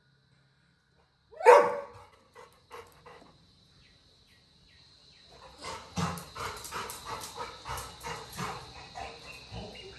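Labrador retriever giving one loud crying bark about a second and a half in, distressed at being left behind by his brother. A few faint short sounds follow, and in the second half a quick run of short sounds, about three a second, over a steady high tone.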